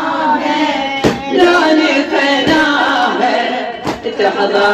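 Female mulaya singing a Shia latmiya lament in Iraqi Arabic, a sustained melodic line, kept in time by three sharp beats about a second and a half apart: the chest-beating (latm) strikes of the mourners.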